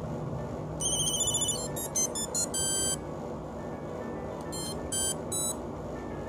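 Ericsson T39m mobile phone playing a monophonic ringtone: electronic beeps with a buzzy, many-overtone tone. A fast warbling trill comes about a second in, then a quick run of short notes ending on a longer one. After a pause of about a second and a half, four more notes follow. Steady low background noise runs underneath.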